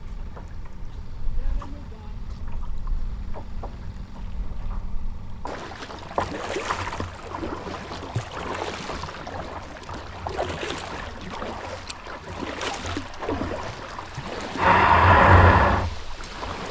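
Low wind rumble at first, then water splashing and sloshing against a moving kayak's hull, with a louder rush of water lasting about a second near the end.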